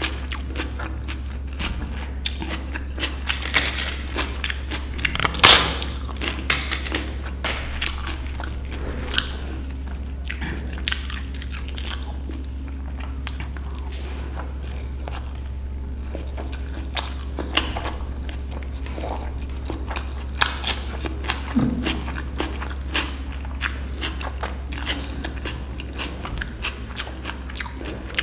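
Close-miked eating of dal and rice: chewing with many small clicks and a few sharp, loud snaps, the loudest about five and a half seconds in. A steady low hum runs underneath.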